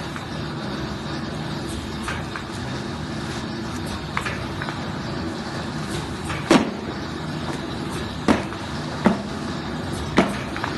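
Semi-automatic film laminating machine running with a steady hum. A few sharp knocks sound over it in the second half, spaced about one to two seconds apart.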